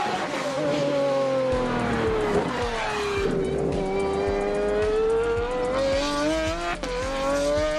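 Pagani Zonda's AMG V12 engine on track: the revs fall over the first three seconds or so, then climb steadily as it accelerates, with a sharp gear change about a second before the end and the pitch rising again after it.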